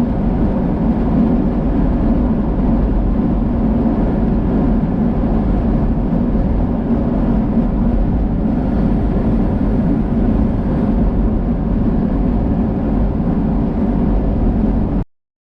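Steady road and engine noise heard from inside a moving vehicle's cabin, cutting off suddenly near the end.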